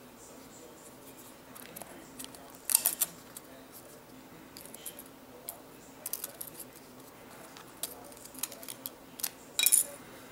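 Small Phillips screwdriver clicking and scraping against tiny screws and metal parts inside an iPad Air 2 as the screws are taken out: scattered light metallic clicks, with louder clusters about three seconds in and near the end.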